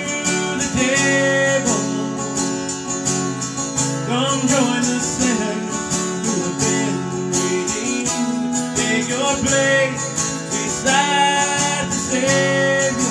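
Acoustic guitar strummed in a steady rhythm, with a man's voice singing over parts of it.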